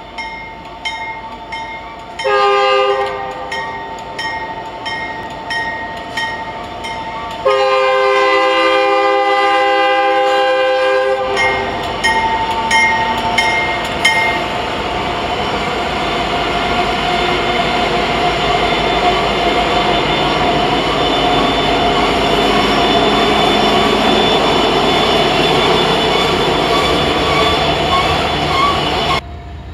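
Norfolk Southern diesel freight locomotive's air horn. It gives a short blast about two seconds in and a longer blast of several seconds from about seven to eleven seconds, over regular wheel clicks on the rails. Then comes the loud, steady rumble of the freight train passing close by, which cuts off suddenly near the end.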